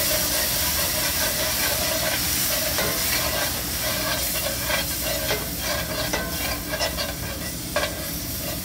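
A hot flour-and-oil roux sizzling and steaming in a cast-iron skillet as water is stirred into it to make gravy. A slotted spatula scrapes the pan, with scrapes and clicks coming thick and fast from about three seconds in.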